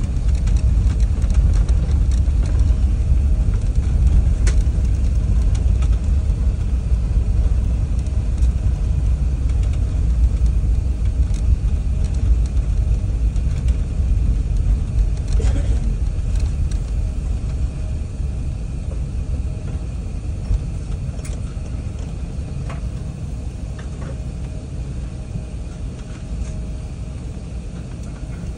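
Low, steady rumble inside the cabin of a taxiing Airbus A380-800, from its engines at low power and its wheels rolling on the taxiway; it gradually gets quieter toward the end as the aircraft slows. A few faint clicks sound now and then.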